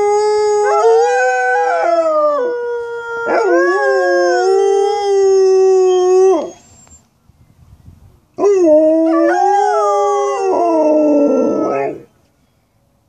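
Alaskan Malamutes howling in long, wavering drawn-out notes, with a second dog's voice briefly overlapping near the start. The howling breaks off about six seconds in, starts again about two seconds later, and stops near the end.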